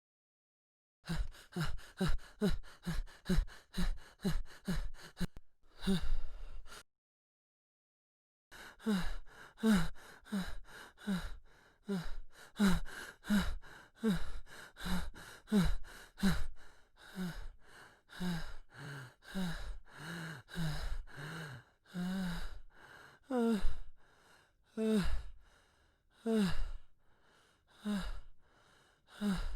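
Heavy, out-of-breath panting after running: quick voiced gasps, each falling in pitch, about three a second. There are two short silent breaks; after the longer one the breaths gradually slow and lengthen, ending about one every second and a half.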